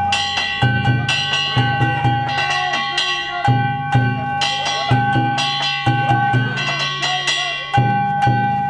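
Danjiri festival float's narimono: a taiko drum beaten in a fast, driving rhythm with hand gongs (kane) clanging along.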